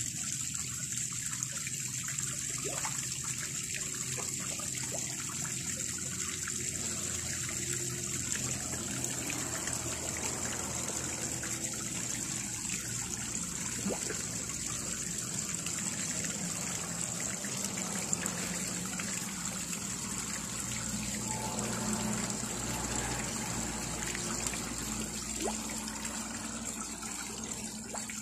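Small stone waterfall trickling and splashing steadily into a garden fish pond, with a steady high hiss running underneath.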